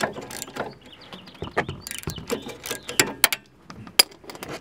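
Irregular metallic clicks and knocks of a ratchet, socket and cheater pipe being worked on a high-torque caliper bracket bolt, with a sharper click about four seconds in.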